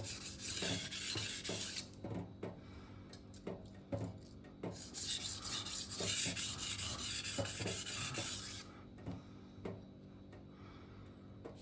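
Steel chef knife blade scraping back and forth across the 1000-grit side of a vitrified diamond whetstone in quick strokes, as light minimization passes to weaken the burr and even out the scratch pattern. The scraping comes in two busy runs, one at the start and one from the middle, with fainter, sparser strokes in between and near the end.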